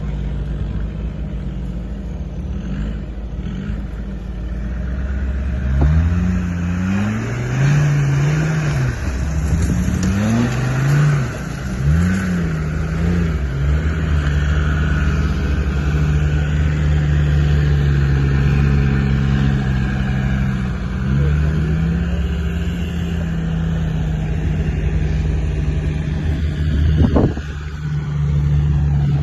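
A 4x4's engine working off-road. It revs up and down several times in quick succession, then pulls steadily at higher revs. A brief sharp sound comes near the end.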